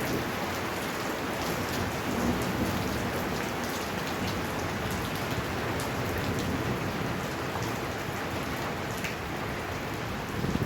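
Heavy rain falling steadily, with many scattered sharp ticks of drops striking hard surfaces.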